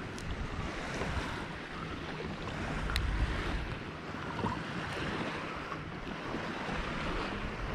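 Wind rushing over the microphone with water lapping, and a few faint clicks.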